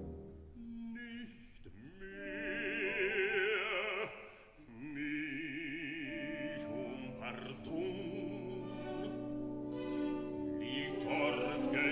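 Operatic singing in German over an orchestra, the voices carrying a wide vibrato. A higher voice sings for a couple of seconds, then lower voices take over after a brief drop in level.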